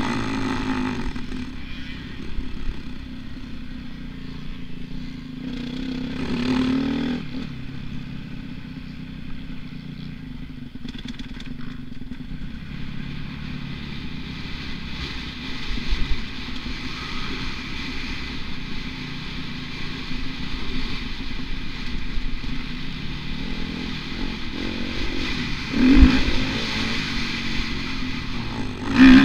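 Dirt bike engine running under load through the corners of a motocross track, heard from a helmet-mounted camera, with the revs swelling briefly about seven seconds in and again near the end.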